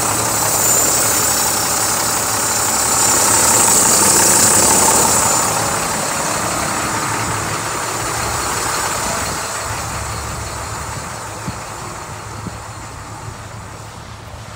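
Diesel engine of a 2007 IC CE 300 school bus idling steadily, growing fainter over the second half.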